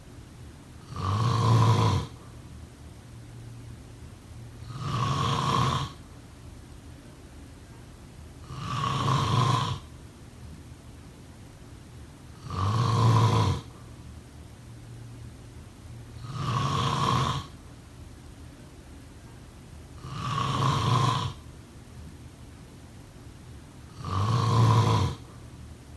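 A person snoring in a steady rhythm: seven snores, about one every four seconds, each lasting about a second.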